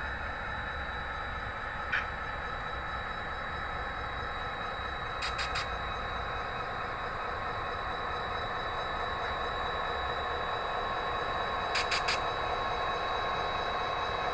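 HO scale model freight train rolling slowly along the track with a steady running hum. Its wheels click over rail joints: once about two seconds in, then two quick runs of three clicks around five and twelve seconds in.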